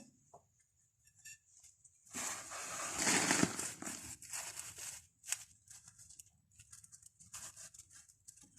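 Rubber dust boot being worked by hand back onto a freshly greased brake-caliper guide pin: a stretch of rustling and rubbing about two seconds in that lasts some three seconds, then several short scrapes.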